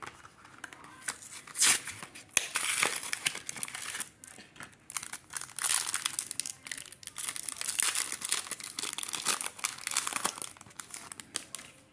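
Foil booster-pack wrapper crinkling and tearing as it is pulled open by hand, in irregular crackling bursts.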